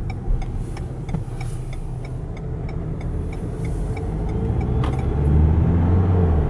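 Inside the cabin of a Renault Espace: low engine and tyre rumble as the car slows through a turn, then a steadier engine note that grows louder near the end as it accelerates. Faint regular ticking runs underneath.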